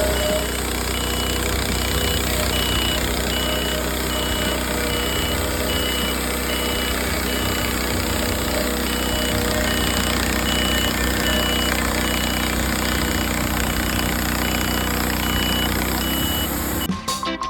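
Wood-Mizer portable sawmill's engine running steadily, with a faint high beep repeating about twice a second.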